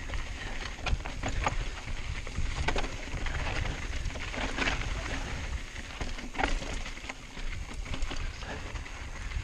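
Mountain bike rolling downhill over loose rock and gravel: tyres crunching and the bike rattling, with irregular sharp clicks and knocks as it hits rocks. Wind rumbles steadily on the chin-mounted camera's microphone.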